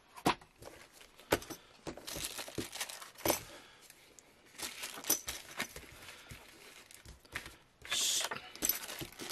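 Paper, card and plastic packaging handled on a desk: rustling and crinkling with sharp taps as items are set down, the loudest a rustle about eight seconds in.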